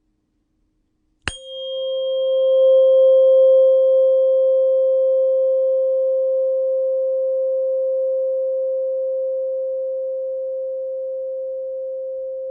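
A 528 Hz tuning fork is struck about a second in and rings with one steady, pure tone. A faint high overtone from the strike dies away after a few seconds, and the main tone slowly fades.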